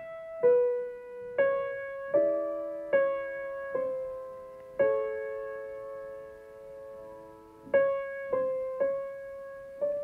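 Slow, quiet piano music: single notes and soft chords struck about once a second, each ringing and fading, with one chord held for a few seconds in the middle.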